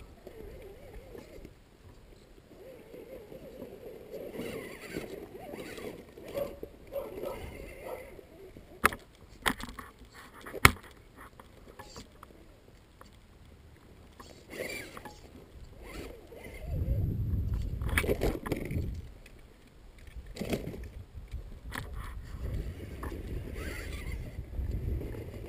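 Scuffing and handling noise around a scale RC rock crawler on rock, with three sharp clicks about nine to eleven seconds in. Wind rumbles on the microphone for a couple of seconds later on.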